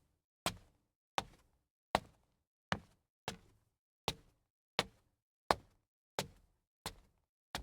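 Sharp knocks or taps repeating at an even pace, about three every two seconds. Each one dies away quickly, with silence between.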